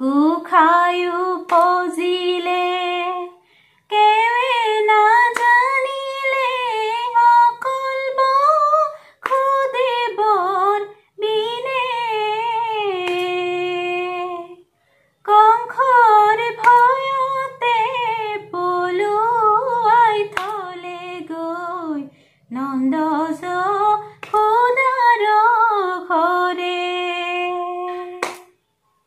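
A woman singing an Assamese dihanaam (devotional chant) solo, without instruments, in held melodic phrases broken by short pauses for breath. A few sharp hand claps keep time.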